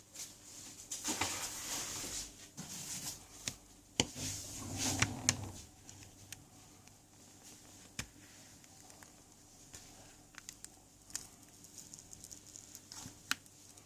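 Small tools working on a smartphone's casing during disassembly: scraping and prying, with sharp clicks about four, eight and thirteen seconds in and light ticks in between.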